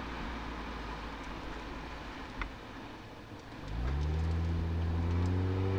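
Toyota Altezza's 1G-FE straight-six through an Apexi exhaust, heard from the rear bumper: a low, even rumble, then a few seconds in the engine note rises in pitch and grows louder as the car pulls away, settling into a steady drone.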